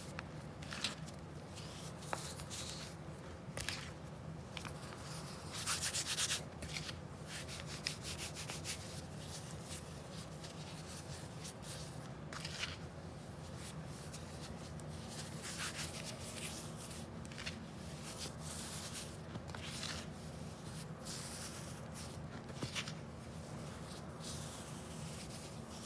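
Baked baking soda and baking powder being crunched and crumbled by hand, soft powdery rubbing and crunching in irregular bursts, the loudest about six seconds in.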